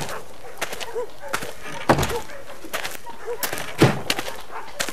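An unlatched door swinging in the wind and banging against its frame, a knock about every two seconds with faint creaks from the hinges between. The door was not shut properly.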